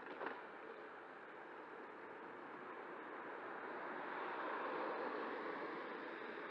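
Steady road and wind noise from an electric scooter riding on wet asphalt, with no clear motor whine, swelling a little around four to five seconds in. A short click comes just after the start.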